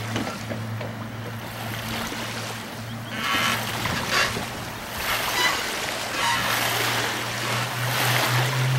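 Motorboat under way: the motor hums steadily while water rushes and splashes along the aluminium hull, the water noise growing louder about three seconds in. The motor's pitch rises near the end as it speeds up.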